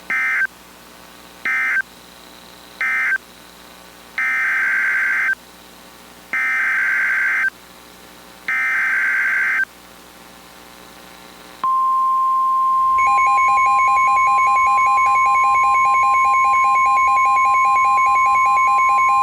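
NOAA Weather Radio SAME digital data bursts: three short buzzy bursts (the end-of-message code for the previous alert), then three longer bursts carrying the new alert's header. About twelve seconds in, the steady single-pitch weather radio warning alarm tone starts, and a fast-pulsing beep joins it a second later. Together they announce the tornado warning that follows.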